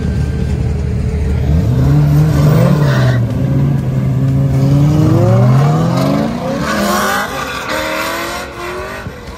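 Two drift cars, a Nissan 240SX hatchback and a Nissan 350Z, idling side by side, then revving and accelerating hard away. The engine pitch climbs repeatedly through the gears and fades as they pull off.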